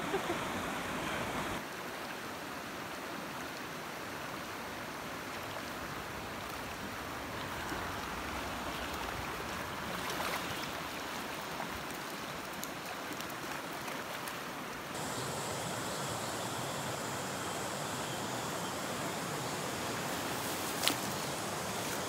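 Mountain stream running over rocks: a steady rush of water whose tone shifts abruptly twice. One short sharp click near the end.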